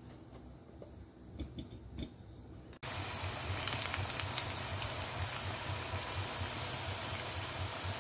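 A few faint soft knocks as sweet potato sticks go into a bowl of batter, then, about three seconds in, an abrupt cut to batter-coated sweet potato sticks deep-frying in hot oil, sizzling steadily.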